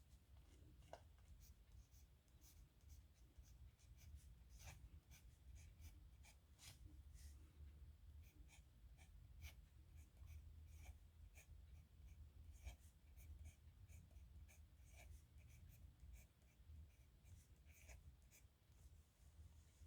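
Nib pen scratching on paper in short, irregular strokes, faint, over a low steady hum.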